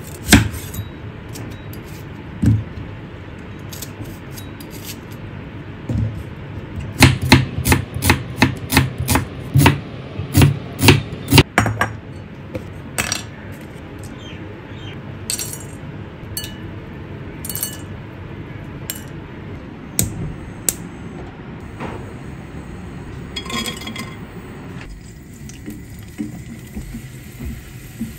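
Kitchen handling sounds: a run of sharp knocks and clinks about two a second through the middle, then scattered single taps, over a steady low background noise.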